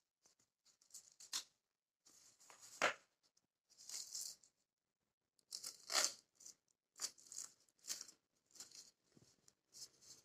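Blood pressure cuff being unrolled and wrapped around an upper arm: its Velcro crackling and the fabric rustling in short irregular spells, with a few sharper rips.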